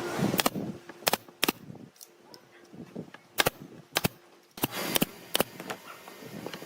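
A series of sharp knocks, about eight in all, irregularly spaced, over a faint steady hum.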